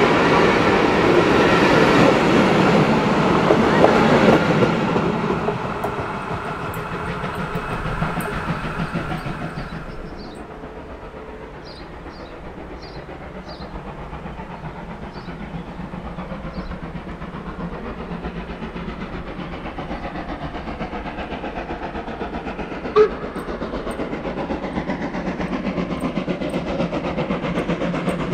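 Steam locomotive hauling a train past, its exhaust beats loud at first and fading away after about five seconds. Then the train's wagons roll by steadily, their wheels clicking over the rail joints, with one sharp click near the end.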